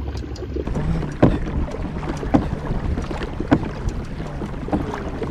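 Kayak under way on open water, a sharp knock about once a second with each propulsion stroke, over a steady rumble of wind on the microphone and water.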